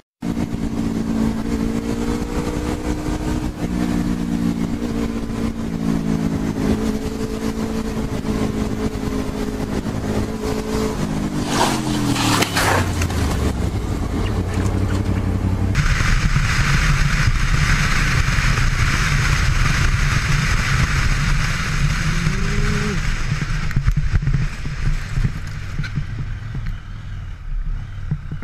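Motorcycle engine running steadily at cruising speed. About twelve seconds in its pitch drops quickly, with a couple of sharp short noises. For the rest, a loud steady rushing hiss sits over a low engine rumble, with a brief rising engine note a little past the middle.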